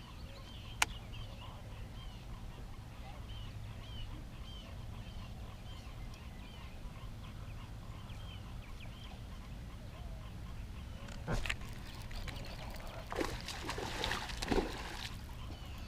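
A bird calls over and over in short high chirps over a steady low rumble. There is a sharp click about a second in, and a few brief noisy rustles or splashes in the last few seconds.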